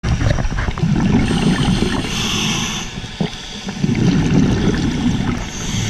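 Scuba diver breathing through a regulator underwater. The exhaled air bubbles out in two long bouts, one about a second in and another around four seconds in. Between them the regulator hisses on the inhale, about two seconds in and again near the end.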